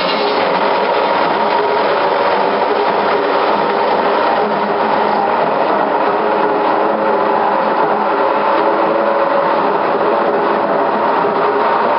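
Sawmill machinery running steadily: a continuous mechanical din with fast, even clattering.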